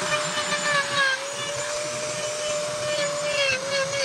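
A high-speed power carving tool running with a steady, slightly wavering whine and a hiss of wood being ground away.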